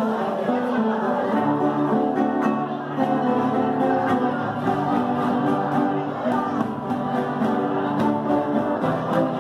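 A viola caipira and acoustic guitar ensemble strumming a song in steady rhythm, with a group of voices singing along and a cajón keeping the beat.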